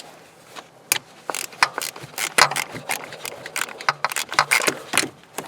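A 10 mm socket ratchet clicking in quick, irregular runs, starting about a second in, as it undoes the bolt that holds an ignition coil pack to the valve cover.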